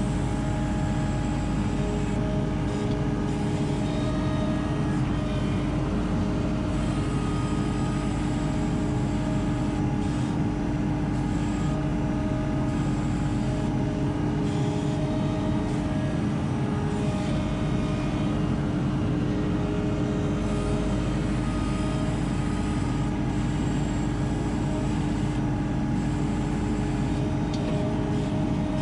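ASV RT-40 compact track loader's diesel engine running steadily, heard from the operator's seat in the cab while the machine grades sand.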